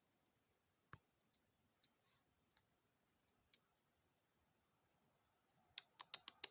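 Red squirrel gnawing and cracking a peanut shell: a few faint, scattered clicks, then a quick run of crisp cracks near the end.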